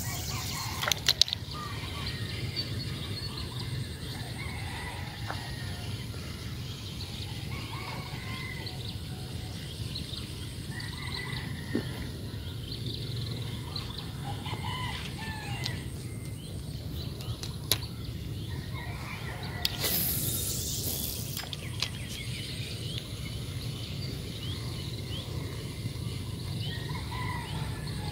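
Scattered bird calls over a steady low rumble, with a few sharp clicks about a second in and a brief hiss about twenty seconds in.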